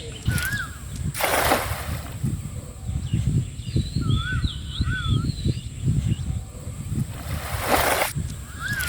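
Water sloshing and churning, with two short, loud splashes about a second in and near the end. A bird calls with repeated warbling whistles between them.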